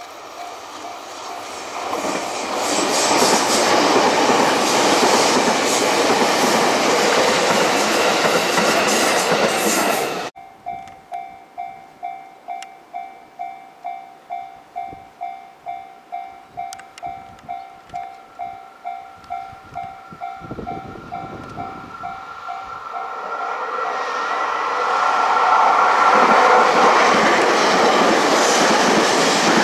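A red JR East E253 series limited express train passing close by, a loud rush of wheels on rail, cut off suddenly about ten seconds in. Then a level-crossing bell dings steadily about twice a second while a second red express train approaches and passes loudly near the end.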